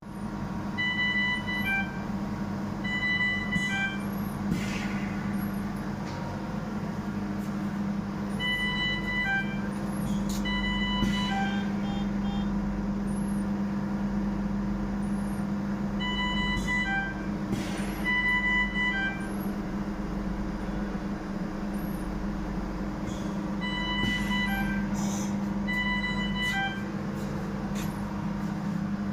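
Ventilator alarm: short groups of pitched electronic beeps at several pitches, repeating about every eight seconds over a steady low machine hum.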